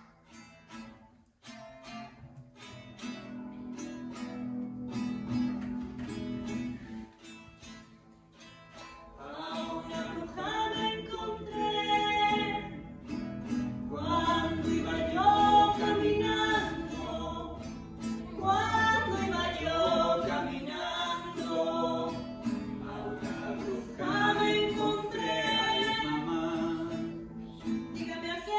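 Acoustic guitar playing alone at first, then singing comes in about ten seconds in and carries on as a song over the guitar.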